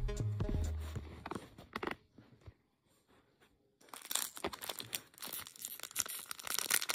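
Background music fades out in the first second or so, then after a short pause a foil blind-bag wrapper is torn open by hand and crinkles, from about four seconds in.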